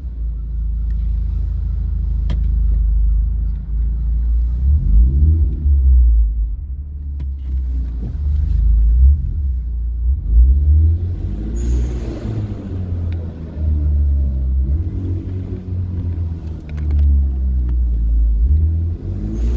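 Hyundai Genesis Coupe's exhaust with a deep, steady low rumble as the car moves through a parking garage, broken by several revs that rise and fall in pitch: one about five seconds in, a longer run of them around the middle, and another near the end.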